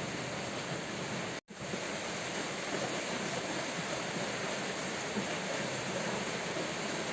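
Steady heavy rain as an even hiss, cutting out completely for a split second about one and a half seconds in before resuming.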